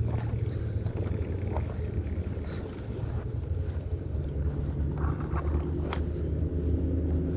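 A motor runs with a steady low rumble, most likely a boat engine on the lake, with one sharp click about six seconds in.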